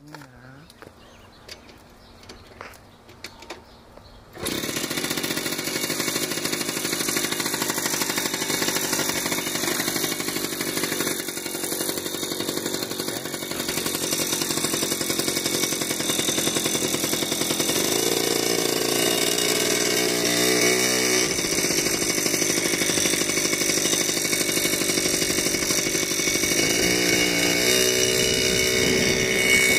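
A moped engine starts abruptly about four seconds in and then runs steadily while riding, its pitch rising and falling with speed a couple of times near the middle and near the end.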